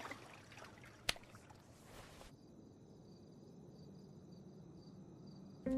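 Faint outdoor ambience: a single soft click about a second in, then from about two seconds a steady high chirring of insects. Music comes in at the very end.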